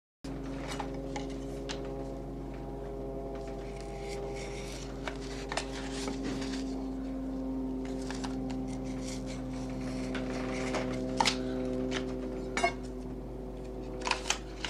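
Shoemaker's knife ticking and scraping against a wooden board while cutting out a shoe pattern, with scattered sharp clicks, the loudest in the second half, over a steady hum.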